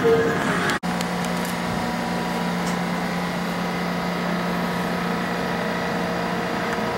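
A standing diesel passenger train humming steadily: a constant low drone with fainter higher tones over it. It follows a sudden cut about a second in.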